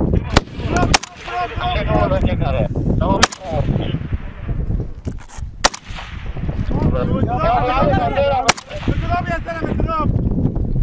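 Rifle shots fired singly at irregular intervals, about seven of them, with shouting voices between them.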